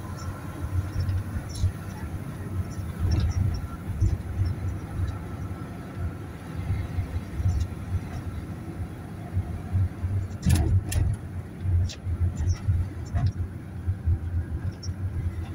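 Low road and engine rumble heard from inside a moving car, with a few sharp clicks or knocks about ten seconds in.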